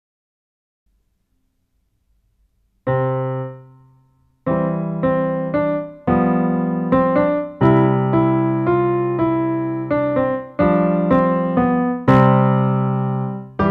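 Piano sound from a digital keyboard: a single chord about three seconds in that rings and dies away, then from about four and a half seconds a steady run of chords and notes, one after another.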